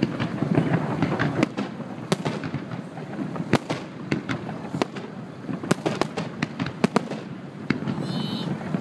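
Fireworks display: rapid, irregular bangs and crackles of bursting shells, several a second, over a continuous low rumble.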